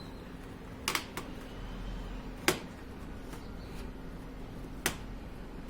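Plastic snap-fit clips of a laptop's bottom case cracking loose one by one as the case is pried open by hand: four sharp clicks, the loudest about halfway through.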